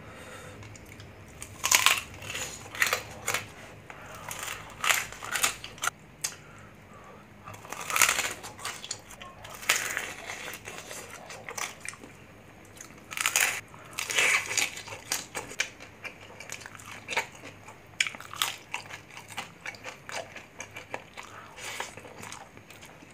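Close-miked crunching and chewing of crispy deep-fried pork belly (bagnet), eaten in bites: sharp crunches come in irregular clusters with quieter chewing between them.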